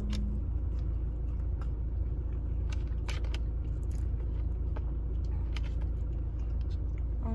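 Light clicks and taps of eating, with utensils on a takeout container and biting into food, scattered irregularly over a steady low rumble.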